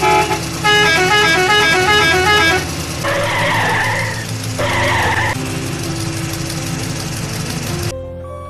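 Vehicle horn sounds: a multi-tone musical horn playing a quick stepping tune for about two and a half seconds, then two harsh horn blasts. A steady low hum follows and cuts off near the end.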